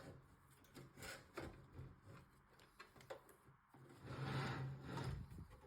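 Faint handling noises from a power supply being worked into a PC case: a few light knocks, then a rough rubbing scrape lasting about a second and a half near the end.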